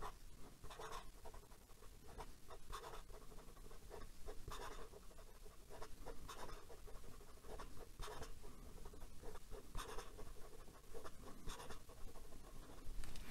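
Extra-fine nib of a Kaco Acanthus fountain pen writing quickly on lined notebook paper: a faint run of short, irregular pen strokes. The nib is toothy on the paper but not scratchy.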